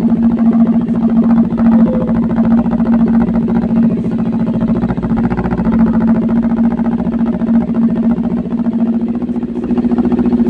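Kawasaki Ninja 400's parallel-twin engine idling steadily through an SC Project slip-on exhaust fitted without its dB killer.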